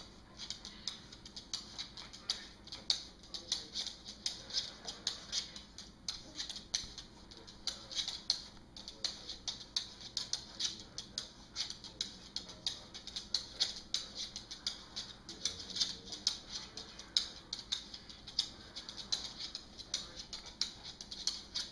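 A small dog's claws clicking and scrabbling on a hardwood floor in quick, irregular bunches of taps as it wiggles and shuffles its itchy rear.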